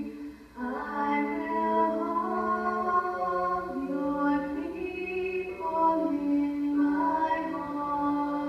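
Two young girls singing a slow song together into microphones in long held notes, often on two pitches at once, with a short breath just after the start, heard played back through a television's speaker.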